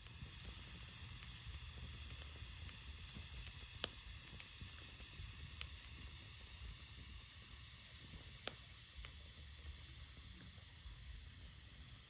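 Wood fire burning in a clay bucket stove: a faint steady hiss broken by a few sharp crackles and pops, the loudest about four seconds in.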